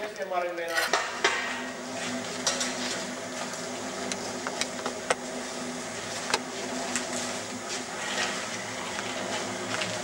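Bricklaying work: a steel trowel clinking and scraping against bricks and mortar in an irregular string of sharp taps, over a steady low hum.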